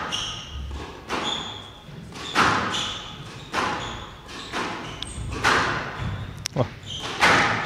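Squash rally: the ball cracking off racquets and thudding against the walls about once a second, one sharp crack about six and a half seconds in, with short high squeaks of court shoes on the floor between strokes.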